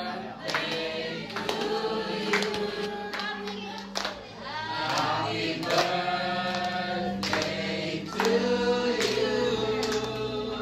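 A small group of mixed voices singing a birthday song together, with hand claps keeping time along with the song.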